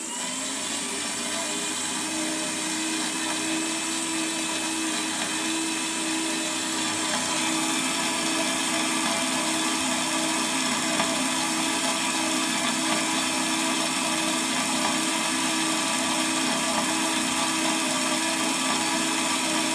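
Hafco BS-5V portable bandsaw starting up and running steadily as it cuts through 10 mm steel plate: a steady motor hum with a hissing blade noise.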